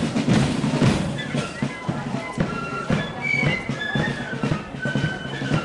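Marching flute band playing: heavy drumming that thins out about a second in, then a thin flute melody over lighter drum beats.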